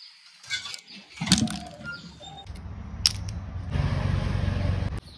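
Sharp clicks as the tips of freshwater snail shells are cut off with a small knife. A steady low rumble comes in about halfway through, grows louder and stops suddenly near the end.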